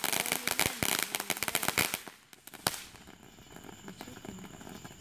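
Consumer fireworks going off on the ground: a rapid string of crackling pops that stops about two seconds in, followed by one last sharp bang a little later.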